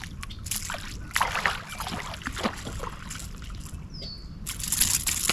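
A string of short, irregular knocks and rustles, with a brief falling chirp about four seconds in and a louder rustling stretch near the end.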